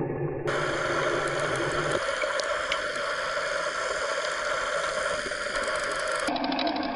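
Steady muffled rush of water heard through an underwater camera, with a few faint clicks. Its tone shifts abruptly twice.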